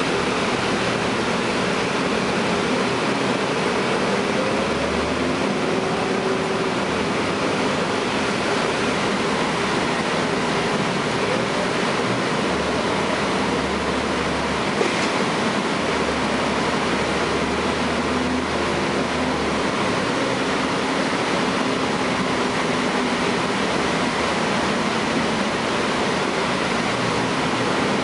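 Cabin noise of a 2012 Gillig Low Floor bus under way: its Cummins ISL9 straight-six diesel running, with a steady rush of driving noise and a low hum that swells and fades several times. A single short click comes about halfway through.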